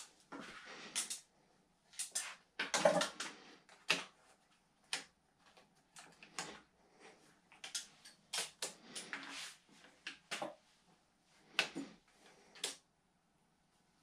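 Irregular clicks, taps and rustling of hands handling bicycle cables, cable housing and small parts while routing them on a road bike.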